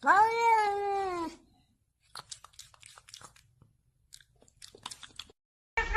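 A cat's long meow, rising and then falling in pitch, followed by faint quick crunching clicks like a cat chewing. Another long, steady call starts near the end.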